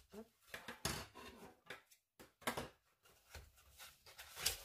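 Scissors cutting the seal on a small cardboard box, then the box's flaps being pulled open by hand: a run of short scrapes, snips and rustles of cardboard.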